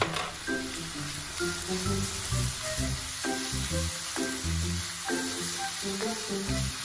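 Sliced beef frying and sizzling in a pan as it is stirred with a spatula, coated with teriyaki sauce, under background music.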